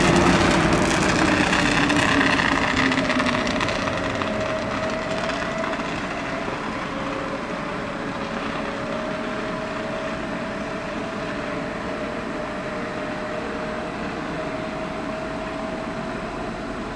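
ÖBB class 1116 Taurus electric locomotive pushing a Railjet away from the platform, its traction whine slowly rising in pitch as the train gathers speed, and the sound fading as it draws off.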